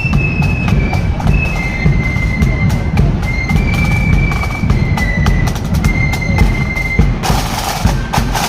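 Marching flute band playing a high melody over pounding bass drum and snare strokes. The tune stops about seven seconds in, and a loud hissing rush joins the drums near the end.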